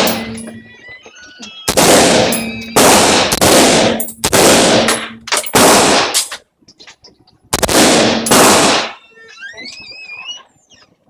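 AR-15 rifle firing .223 rounds: about eight shots in quick succession, in two groups with a pause of about a second between them, each shot leaving a brief ringing tail.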